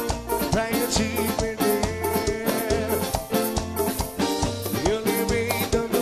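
Lambadão band music, an instrumental passage: a steady drum-kit beat with pulsing bass under sustained melodic lines.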